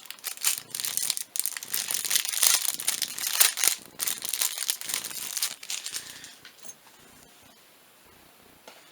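Plastic packaging crinkling and rustling as it is handled, dying down about six seconds in.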